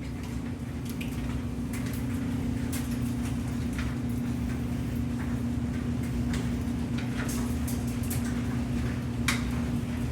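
Storm water welling up out of a floor drain, splashing and dripping irregularly, over a steady low hum. The drain is backing up despite a backflow device fitted on the sewer lateral.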